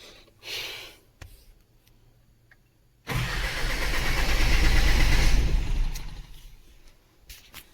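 Isuzu truck diesel engine turned over by its starter for about two and a half seconds without catching, then winding down; a short noise comes first, about half a second in. The mechanic puts the no-start down to the engine stop motor holding the fuel shut-off pulled.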